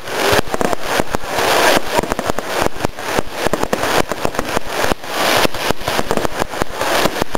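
Fireworks crackling in a dense, continuous run of sharp cracks and pops as bursts of glittering sparks go off overhead.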